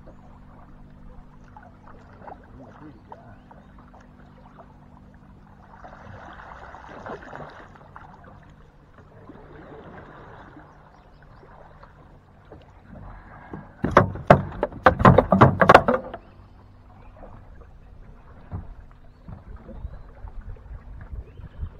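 Knocking and thumping on an aluminium john boat: quiet rustles and hull sounds, then a burst of rapid loud knocks lasting about two seconds, a little past the middle, with a few smaller knocks near the end.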